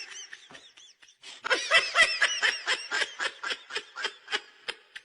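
High-pitched laughter in quick repeated bursts of about four or five a second. It fades after the start and picks up again strongly about a second and a half in.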